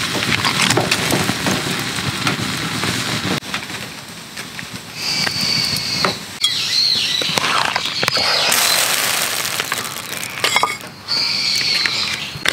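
Birds chirping, with high calls about five seconds in and again near the end, over a steady hiss of background noise.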